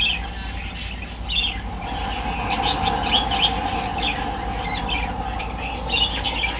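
Small birds chirping repeatedly, in short high calls that come thickest a few seconds in, over a steady hum.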